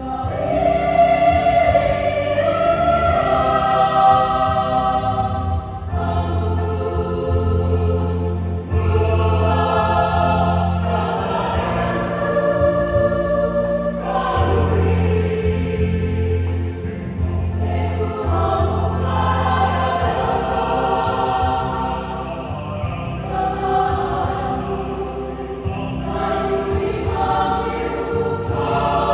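Youth choir singing a church song in several-part harmony, with long held chords and steady low notes sustained underneath at times.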